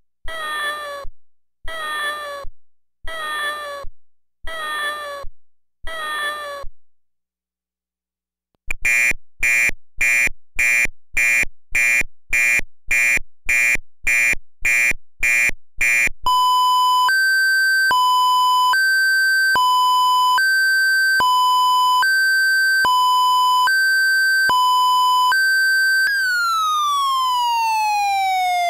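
Wolo 345 Animal House electronic car horn, driven by an NY5P085A voice chip, running through its synthesized sounds. First a cat meows about six times, then after a short pause a buzzer beeps about twice a second, then a two-tone siren alternates between a high and a low note. Near the end a fire siren starts, its tone falling steadily in pitch.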